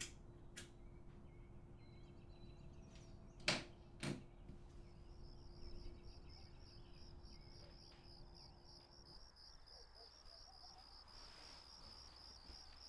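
A cigarette lighter clicks a few times, the two loudest clicks about half a second apart. Then crickets start chirping in a steady, evenly pulsing trill that carries on, over a faint hum that stops about two-thirds of the way through.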